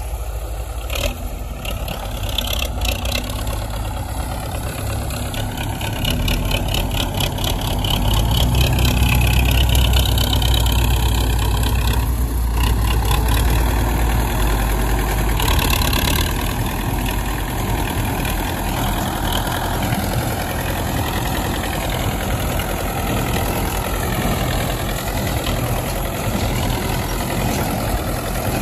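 Belarus tractor's diesel engine running steadily under load while driving a PTO-powered small square baler, with the baler's mechanism clattering along. The engine gets louder for several seconds in the middle.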